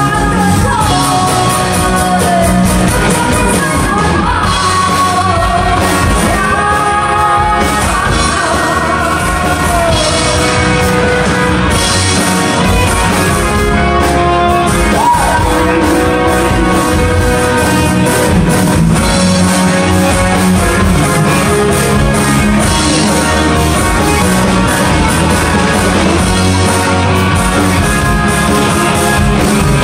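Live band music with a woman singing lead into a microphone over electric guitar, bass guitar and drum kit, amplified through a club PA in a large room.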